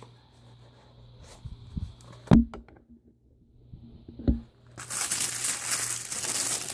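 Two dull knocks of a small box being handled, then from about two-thirds of the way in a long stretch of packaging crinkling and tearing as it is opened.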